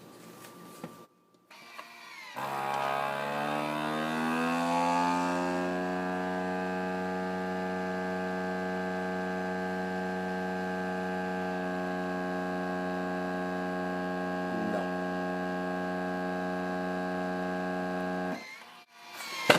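FoodSaver V3460 vacuum sealer's pump running to pull vacuum on a marinating container: it starts a couple of seconds in, rises in pitch over the first few seconds, then hums steadily before cutting off near the end. The container is already near the pump's limit of about 20 inches of mercury, so this pull gains little more vacuum.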